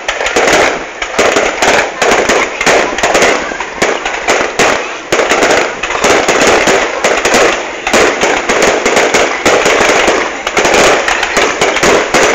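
Fireworks going off in dense, rapid succession: a continuous loud crackle of many overlapping bangs.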